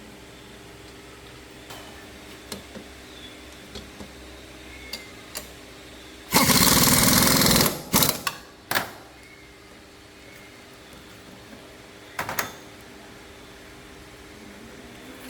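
A power tool running with a rapid rattle: one burst of about a second and a half, then three short bursts, over a steady low hum and scattered small clicks.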